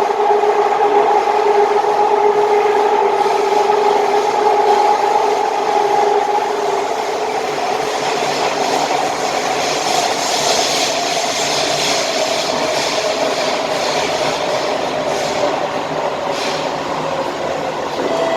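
SMRT C151A train in motion, with a loud steady two-note whine that fades out about six and a half seconds in. The train's running noise then grows, with a whine slowly falling in pitch.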